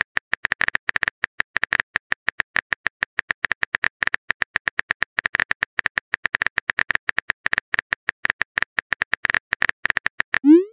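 Simulated phone-keyboard typing clicks from a texting app, several short sharp clicks a second, as a text message is typed out.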